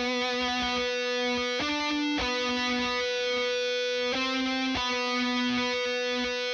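Distorted electric guitar solo of long held notes, changing pitch a few times, played through a Blackstar 6L6 valve amp into a Celestion Creamback G12M-65 speaker in a 1x12 cabinet. It is miked close with a ribbon mic and an SM57, with no EQ or compression.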